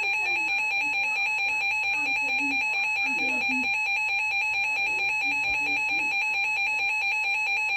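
Emergency Alert System attention signal: a loud, steady two-tone alarm tone, held without a break.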